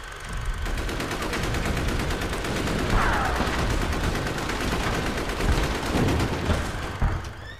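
Rapid gunfire and explosions from TV news footage of a night bombing: a dense crackle of shots over rumbling noise, with a falling whistle about three seconds in.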